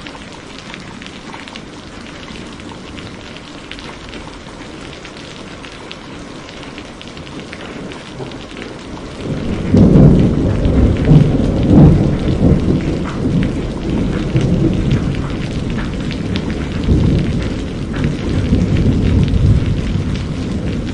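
Heavy rain hissing and splashing steadily on a wet surface. About nine seconds in, a long low rumble of thunder rolls in, loudest over the next few seconds and slowly fading toward the end.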